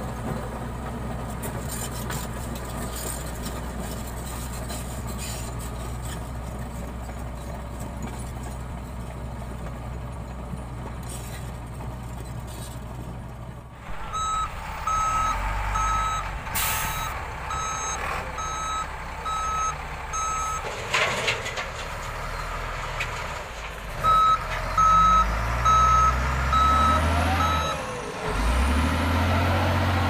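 Komatsu crawler bulldozer's diesel engine running steadily. About halfway through it gives way to a wheel loader and dump truck at work: a reversing alarm beeps in two long runs, two short sharp hisses of air sound, and diesel engines rev up near the end.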